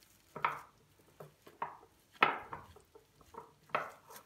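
A wooden spoon pressing and scraping semolina halva into a cling-film-lined glass bowl: a string of short soft knocks and scrapes, the loudest about two seconds in.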